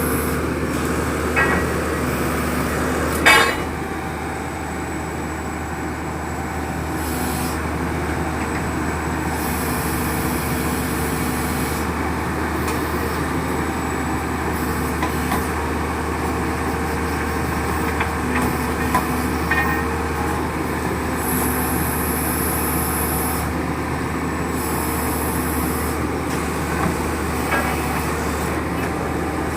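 A ZT-21 horizontal directional drilling rig's engine and hydraulics run steadily under load while pulling pipe, with a few sharp metal clanks. The loudest clank comes about three seconds in.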